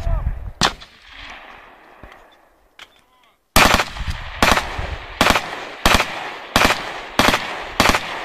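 Small-arms gunfire from several rifles: one shot about half a second in, a quieter lull, then an abrupt start to a steady run of single shots, roughly one every 0.7 seconds.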